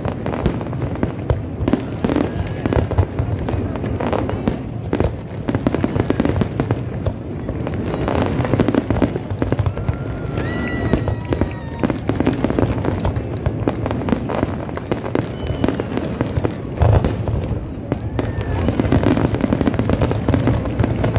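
Fireworks display: many bangs and crackles in quick succession as aerial shells burst, with no let-up.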